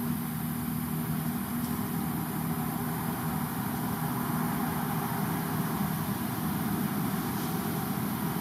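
A steady engine hum, as of a motor idling, with a constant hiss over it.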